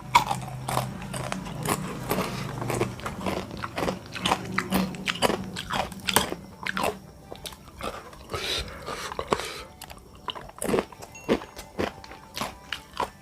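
A person eating bakso meatball soup close to the microphone, chewing with many sharp crunches from the crunchy bits just added to it.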